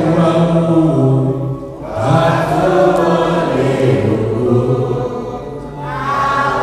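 A man's voice chanting a song through a microphone and loudspeaker, in long held notes that slide between pitches, the phrase breaking off briefly about two seconds in and again near the end.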